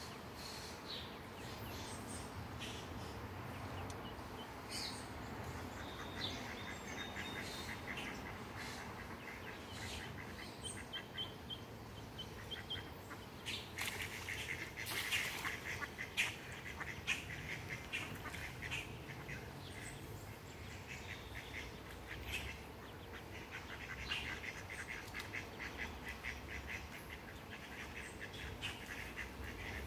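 Ducks on the water calling in rapid runs of short notes, several times. Halfway through, a louder burst of splashing and wing-flapping comes as one duck thrashes at the surface.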